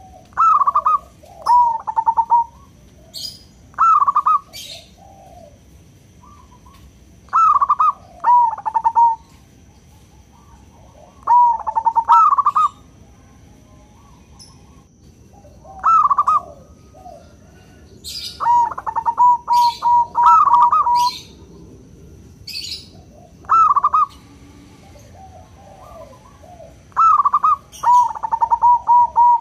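Zebra doves (local perkutut) cooing: short phrases of quick, rolling coo notes repeated every few seconds, with brief high chirps between them.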